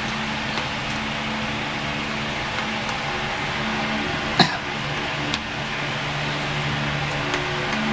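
Plastic action-camera mount parts being fitted onto a helmet chin mount: one sharp click about four and a half seconds in and a softer one a second later, over a steady background hum.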